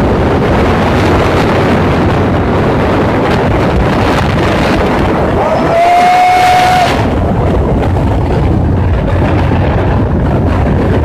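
Wind buffeting the microphone over the steady running of a Dayun motorcycle's engine and tyres at road speed. A brief high tone sounds about six seconds in.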